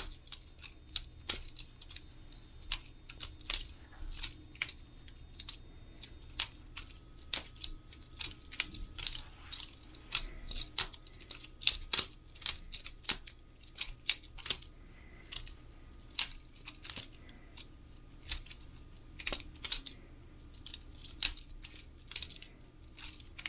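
Boker Plus balisong butterfly knife being flipped: the handles and blade clack against each other and the pivots rattle, giving irregular sharp metallic clicks, a few a second, in quick runs with short pauses.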